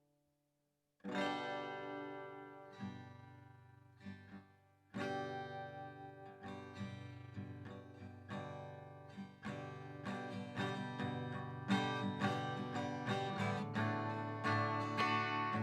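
Guitar being played: after about a second of silence a chord is struck and left to ring, a few sparse notes and another chord follow, then the strokes come faster and louder as a steady strummed rhythm.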